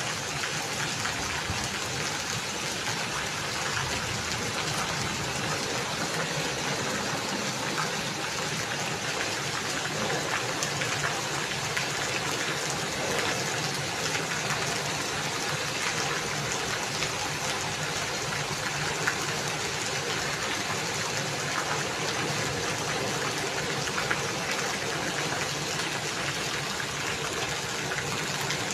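Steady rain falling, an even hiss of water with faint scattered drop ticks.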